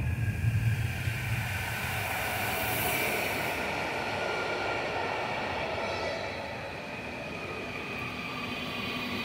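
ED160 (Stadler FLIRT) electric multiple unit rolling along the platform as it pulls in to its final stop: the rumble of wheels and carriages with a steady whine of several high tones over it. There is a brief hiss about two to three seconds in.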